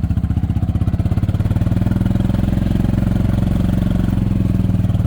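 Golf cart engine running steadily with an even pulsing beat, growing a little louder about a second and a half in.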